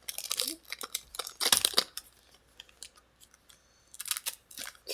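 Foil wrapper of a Pokémon card booster pack being opened, crinkling and snipping in short bursts over the first two seconds, then a few light clicks near the end.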